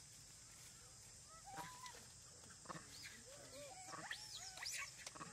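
Macaque monkeys making faint, high coos and squeaks, short calls that arch up and down in pitch. They come thicker and closer together from about a second and a half in, over a steady high hiss.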